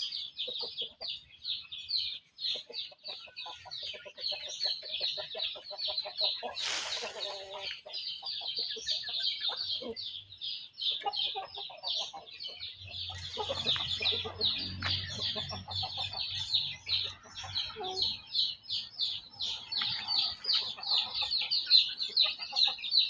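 Chickens calling: a steady stream of rapid, high peeping calls over lower clucking, with a brief rustle or wing flutter about seven seconds in.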